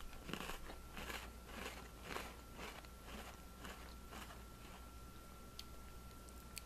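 Mouth chewing a crunchy Pumpkin Spice Oreo sandwich cookie, about two chews a second, growing fainter after about four seconds.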